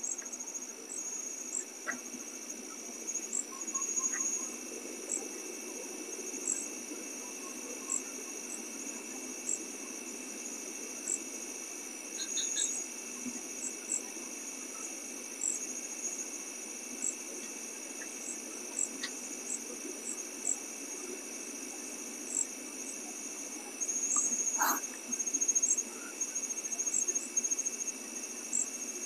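A chorus of night insects: a steady high trill with a short chirp repeating about once a second, and a few brief soft noises near the end.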